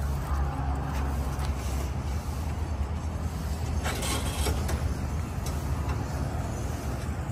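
Steady low outdoor rumble with a few light clicks and rustling about four seconds in, as a canvas awning and its metal frame are handled.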